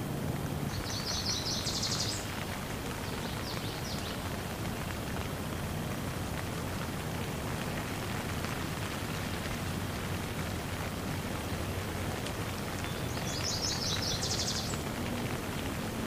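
Steady heavy rain falling on broad banana and palm leaves. A high, rapid trill cuts through twice, about a second in and again near the end.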